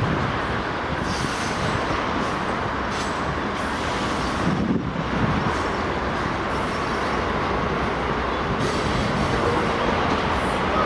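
Freight train's tank cars rolling past: a steady noise of steel wheels on rail.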